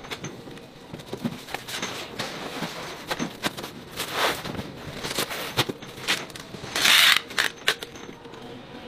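Clear plastic stretch film being pulled off a hand roll and wound around a bin, crackling and rasping in irregular bursts, with one longer, loud rasp about seven seconds in.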